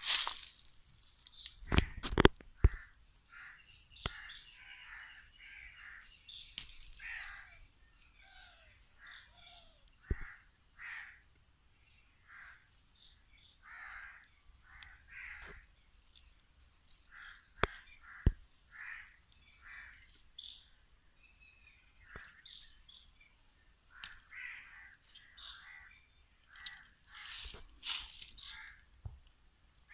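Crows cawing again and again, with smaller birds chirping among the calls, and a few sharp clicks along the way.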